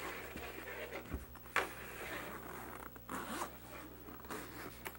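Zipper of a goggles carrying case being pulled open in several rasping pulls, the sharpest about one and a half seconds in.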